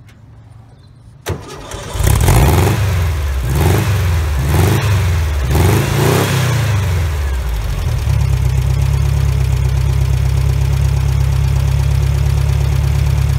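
Dune buggy engine being started from a portable lithium jump-starter pack, with its own battery disconnected. After a click, it catches about two seconds in and is revved up and down several times. It then settles into a steady idle.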